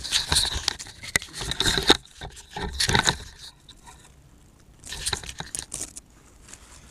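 A wooden log being handled and set into place on the ground: rustling, crunching and scraping in three spells, with a few small knocks and cracks.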